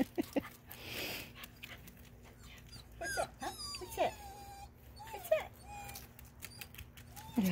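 Klee Kai–Eskimo mix puppy whimpering: several short, high-pitched whines that slide up and down in pitch, spread over the second half.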